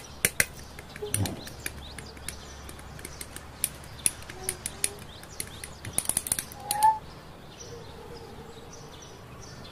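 Hobby side cutters snipping gunpla (Bandai HG RX-78-02 Gundam kit) parts off plastic runners: a string of sharp clicks, thickest and loudest about six to seven seconds in. After that only faint ticks from handling the plastic parts.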